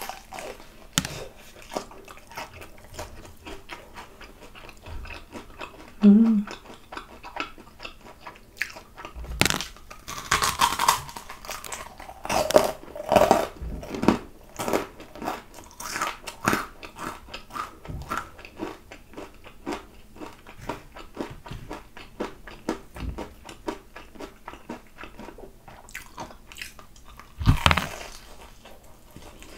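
Close-miked biting and chewing of crispy fried chicken drumsticks, with crackling crunches of the battered crust. The crunching is loudest about ten seconds in and again near the end, with a big bite.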